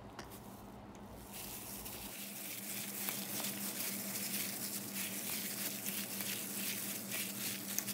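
Raw chicken strips being squished and tossed by hand in marinade in a stainless steel bowl, with wet squelching and the crinkle of a plastic glove. It starts about a second in and keeps up as a steady stream of small wet clicks.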